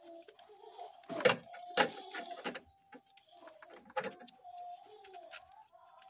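Clicks and knocks of plastic connectors and wiring being handled in a car's engine bay, the loudest about a second in, just before two seconds and again about four seconds in. A faint wavering tone runs underneath.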